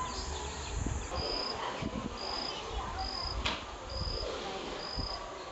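An insect chirping: a short, high note repeated about once a second. Under it are rustles and small clicks from a plastic bag as a kitten eats food out of it.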